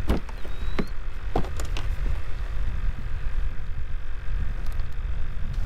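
Steady low rumble of wind on the microphone, with a few light plastic knocks in the first two seconds as the kayak's round deck hatch is opened and an arm reaches into the hull.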